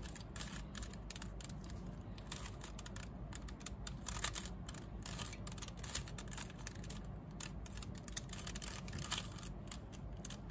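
Stickerless plastic 3x3 Rubik's cube being turned by hand: an irregular run of clicks and clacks as its layers snap round, several a second.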